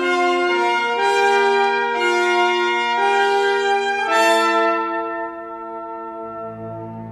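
Orchestra brass playing loud sustained chords that change about once a second, then falling away about five seconds in to a soft held chord, with a low note entering near the end.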